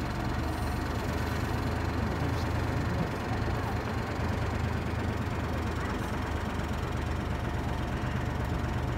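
A vehicle's engine running with a steady low hum.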